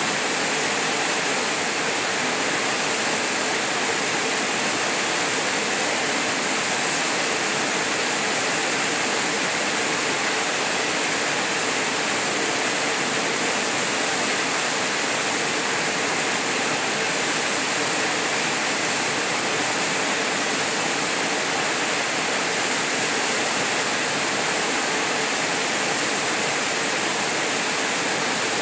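A small waterfall pouring into a plunge pool: a steady, unbroken rush of falling water.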